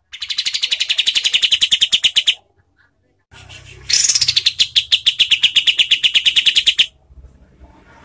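Kapas tembak bulbul singing its harsh, rapid-fire 'tembakan' song: two long bursts of very fast repeated notes, each a few seconds long, with a short pause between them.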